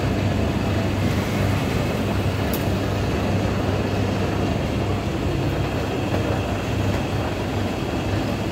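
Steady low mechanical hum and rumble, an unchanging machine drone, with one faint tick about two and a half seconds in.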